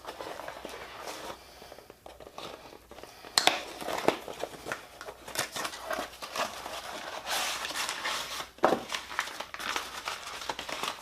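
Taped packaging being pulled open and crumpled by hand: irregular crinkling, rustling and tearing, with a couple of sharp knocks.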